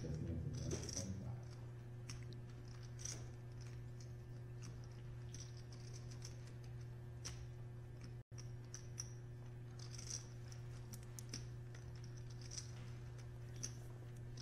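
Poker chips clicking and clattering now and then as players handle and riffle stacks at the table, over a steady low hum.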